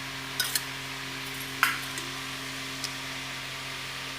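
A few light clinks of a kitchen utensil against the cooking pot while cooking oil is added: a quick pair near the start, a louder one about a second and a half in, then a couple of faint ticks, over a steady low hiss.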